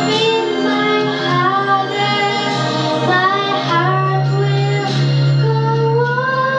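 A young girl singing solo into a microphone over an instrumental accompaniment. She ends the phrase on a long held note near the end.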